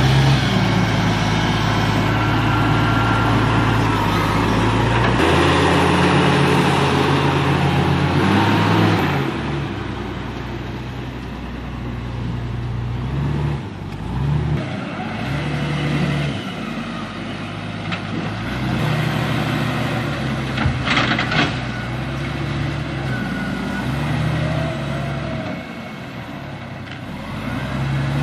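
Heavy diesel machinery running, its engine note changing as it works, with a brief sharp knock about three-quarters of the way through.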